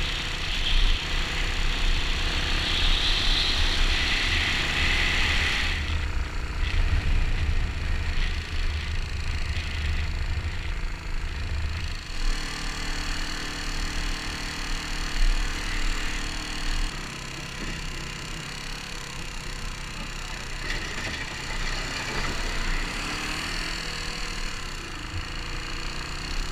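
Kawasaki KLR dual-sport motorcycle running on the move over a rough gravel road, with tyre and gravel noise and rattling. The sound is fuller and louder for roughly the first half, then eases.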